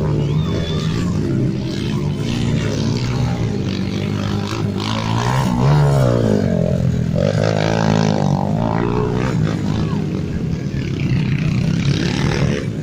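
Dirt bike engines revving hard on a motocross track. One bike rises then falls in pitch as it passes close about six seconds in, with other bikes revving further off.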